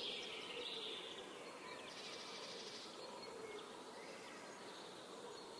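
Faint, steady background ambience of buzzing insects.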